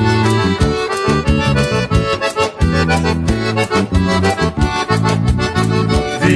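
Instrumental break of an upbeat Brazilian country song: an accordion plays the melody over a steady rhythmic beat, with no singing.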